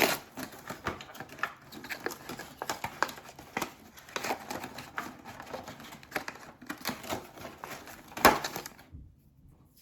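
Cardboard and plastic packaging being opened and handled: a steady run of small crinkles, rustles and clicks, with one louder knock about eight seconds in.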